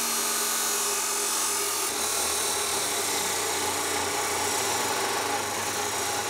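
Black & Decker Professional abrasive chop saw cutting through a metal bar: the motor and cut-off wheel make a steady grinding whine as the wheel bites into the metal.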